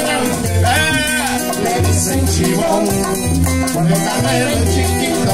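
Live Cuban guaracha played on acoustic guitar, maracas and bongos: a steady strummed groove with a repeating bass-note pattern and the maracas shaking on the beat.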